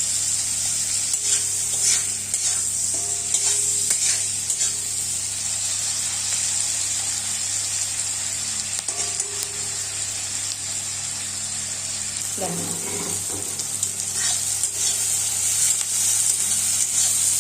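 Chopped onion and garlic sizzling steadily in hot oil in a kadai, with a spatula scraping and stirring now and then.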